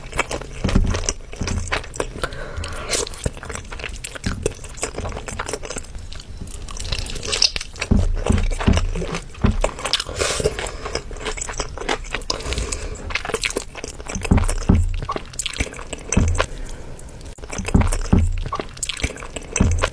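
Close-up mukbang-style eating sounds: crunchy bites and chewing, with irregular crackles and soft wet squishes.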